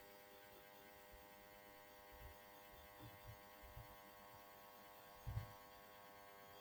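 Near silence: a faint steady electrical hum with a few soft low thumps, the clearest about five seconds in.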